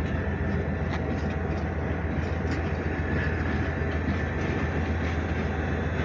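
Freight train of boxcars rolling past: a steady rumble of steel wheels on rail with a few light clicks.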